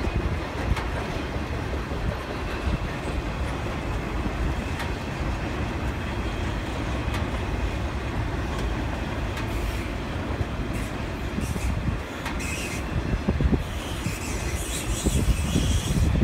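Intermodal freight cars carrying highway trailers rolling steadily past: a continuous rumble of steel wheels on rail, with scattered clicks over the rail joints.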